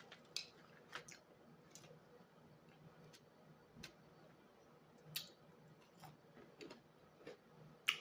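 Quiet eating sounds: about ten soft, irregular clicks and smacks of chewing and handling food, over a faint low hum.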